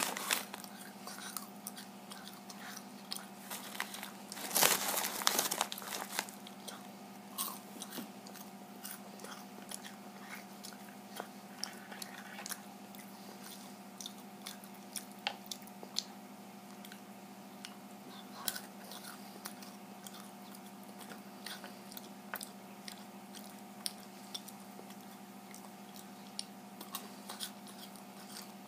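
A child chewing and crunching a snack close to the microphone, with scattered small crunches and a louder crackly burst about five seconds in. A faint steady hum runs underneath.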